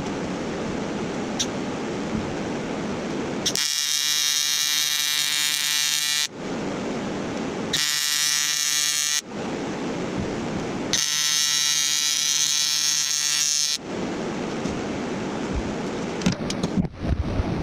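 An electric tool buzzing in three bursts, the first and last about three seconds long and the middle one shorter, over a steady hiss.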